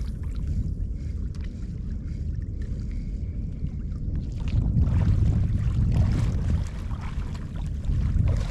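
Wind buffeting the microphone: a steady low rumble that grows stronger about halfway through.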